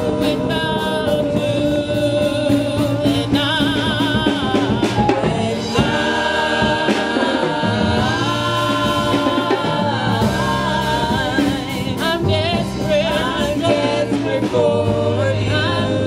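Gospel singing with musical accompaniment: sung voices holding notes with a wide vibrato.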